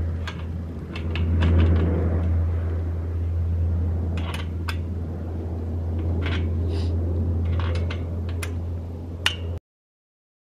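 Scattered metallic clinks and taps of a steel chain-link gate's hinge fittings being worked on the gate post, over a steady low rumble. The sound cuts off abruptly near the end.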